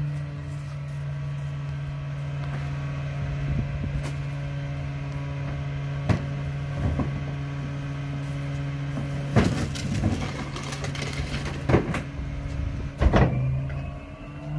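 Mack garbage truck's diesel engine idling steadily behind a McNeilus rear-loader body. Over the second half come several sharp knocks and rattles of plastic wheeled trash carts being grabbed and rolled over gravel to the hopper.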